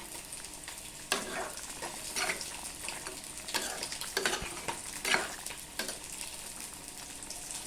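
Food sizzling in a frying pan while it is stirred, with a utensil scraping and knocking against the pan every second or so.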